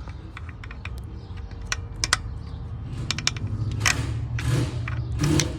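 Irregular light clicks and taps as the high-pressure fuel pump's roller tappet is handled and fitted into place, over a low steady rumble.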